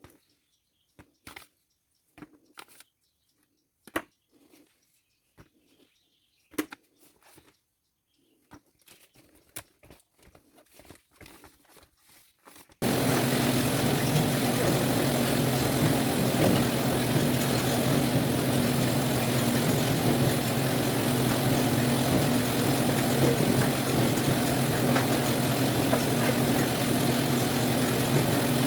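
Sparse light knocks and clicks over near silence, then about halfway through a loud, steady machine noise with a low hum cuts in abruptly: a citrus sorting machine running.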